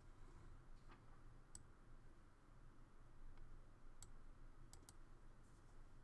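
Faint computer mouse clicks over quiet room hiss: one at about a second and a half, one at four seconds, and a quick pair just before five seconds.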